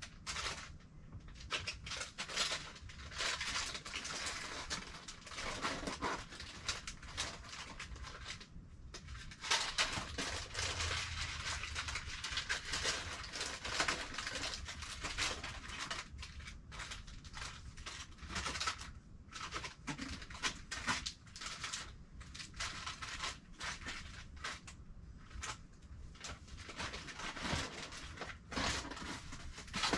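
Irregular rustling and crinkling of packaging and household items being handled and sorted in a cardboard box, with small knocks and clatters in between.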